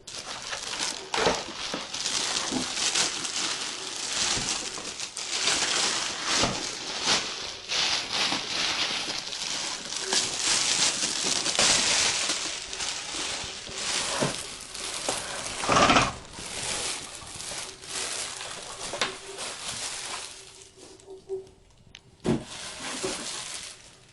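Packaging being handled as an espresso machine is unboxed: continuous crinkling and rustling with many small clicks and knocks, easing off about twenty seconds in, followed by a few separate knocks.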